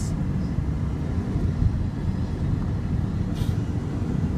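Low, continuous rumble of a car on the move, heard from inside the cabin, with a short hiss about three and a half seconds in.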